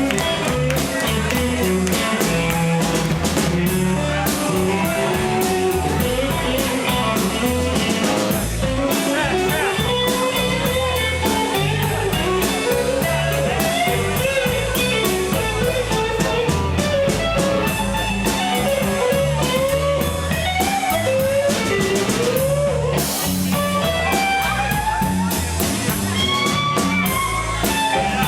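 Live blues band playing an instrumental break: an electric guitar solo with bending notes over bass and a drum kit.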